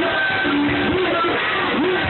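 Loud live music at a club show, with a performer's voice on the microphone over the backing track.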